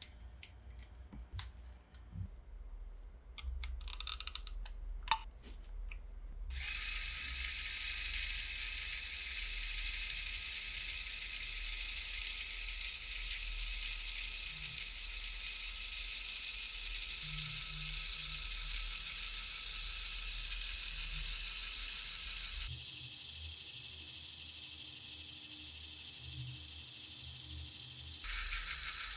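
Lego Technic parts clicked into place by hand, then a Lego Power Functions motor switched on about six seconds in, whirring steadily as it drives the forklift's worm gears and string winch. Its low hum drops away about six seconds before it stops, and it cuts off near the end.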